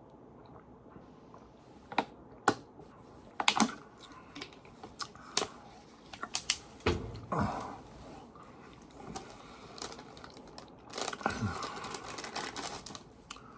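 Close-up eating sounds from crunching an MRE cracker: scattered crisp crunches and clicks, with a denser stretch of crackling near the end.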